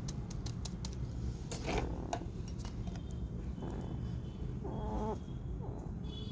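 Injured puppy with maggot-infested wounds whimpering, one short cry about five seconds in, while it is held and treated. A few clicks of handling in the first two seconds.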